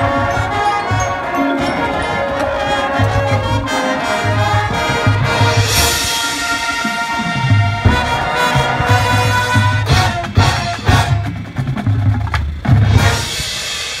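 Marching band playing: sustained brass chords over marimbas and drums, with a cymbal crash about six seconds in and hard percussion hits in the last few seconds.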